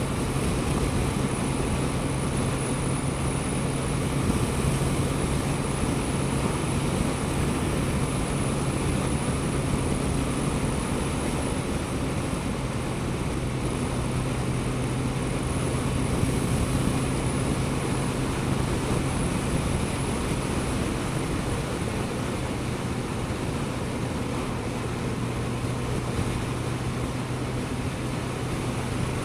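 Suzuki GSX-S1000GT's inline-four engine running at a steady cruise, heard from on board the moving motorcycle: an even engine note over a steady rushing noise, with no change in pitch.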